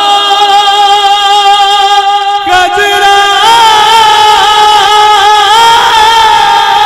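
A man's solo voice singing a naat through a microphone, in long held notes with wavering, ornamented turns. There is a short break about two and a half seconds in, then a new phrase begins.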